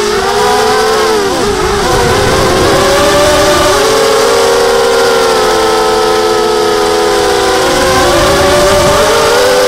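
FPV miniquad's brushless motors and propellers whining, heard close from the quad's own camera. The pitch sags as the throttle drops about a second in and again near the end, then climbs back up.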